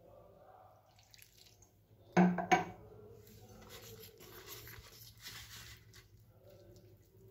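Water poured from a glass into flour, with a short, loud knock a little over two seconds in. After that comes the soft scraping of a metal fork stirring flour and water into batter in a plastic bowl.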